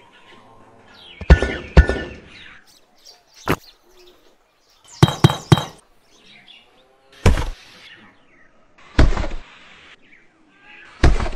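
A series of sharp taps and thunks every second or two as small miniature building pieces (bricks, wooden posts, cardboard panels) are set in place, with faint bird chirps between them.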